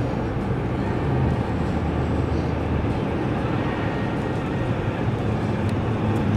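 Steady road and engine noise inside a moving car's cabin: a low drone with tyre rumble on the highway.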